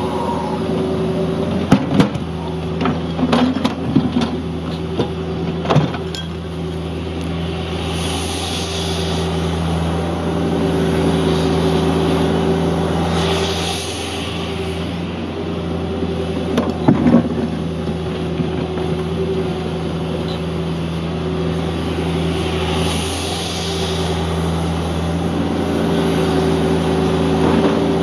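Cat 305.5E2 mini excavator working, its diesel engine running steadily under hydraulic load. Sharp knocks and clatters of the bucket in gravel and stones come in the first few seconds and again about two thirds of the way in, with short bursts of hiss every few seconds.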